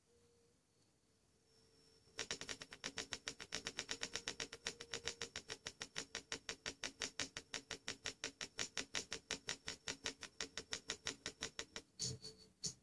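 Camera gimbal on a hexacopter drone, its motors moving the camera with a rapid, even clicking of about six clicks a second. The clicking starts about two seconds in and stops about ten seconds later.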